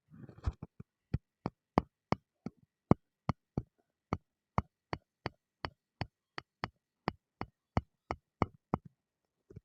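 A steady run of short, sharp taps or clicks, about three a second, slightly uneven in spacing.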